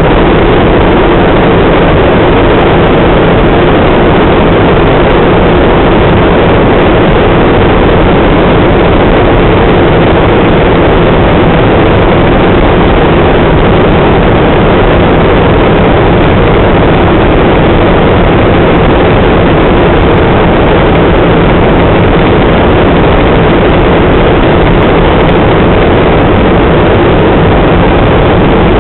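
Helicopter in flight heard from inside the cabin: a loud, steady drone of engine and rotor that doesn't change.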